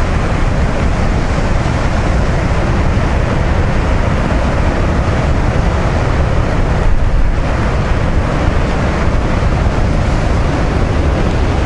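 Heavy storm surf breaking over rocks as a steady, continuous rush, with wind buffeting the microphone and making a low rumble.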